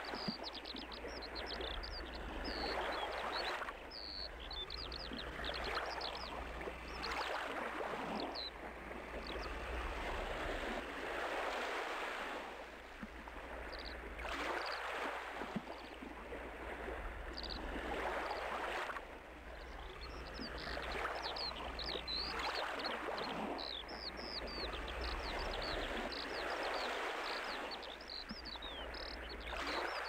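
Small birds calling with many short, high chirps over a rushing noise that swells and fades every few seconds.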